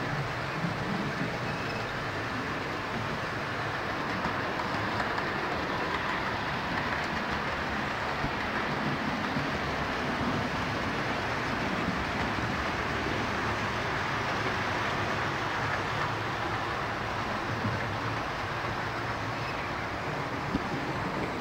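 OO gauge model trains running on the layout's track: a steady running noise of small motors and wheels on the rails.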